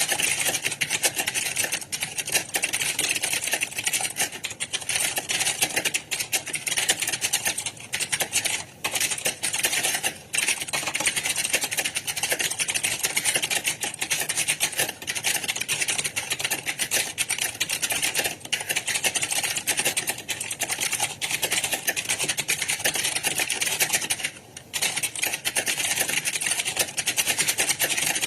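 Many computer keyboards being typed on at once: a dense, continuous clatter of keystrokes with a few brief lulls, typical of a hall full of candidates taking a timed typing test.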